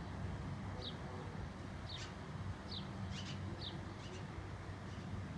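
Small bird chirping: short, high, falling chirps about once a second, a few of them coming in quick pairs, over a steady low rumble.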